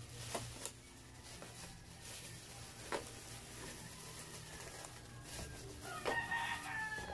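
Thin plastic bag crinkling and rustling as fried spring rolls are shaken out of it onto a food box, with a few sharper crackles. About six seconds in, a rooster starts crowing in the background.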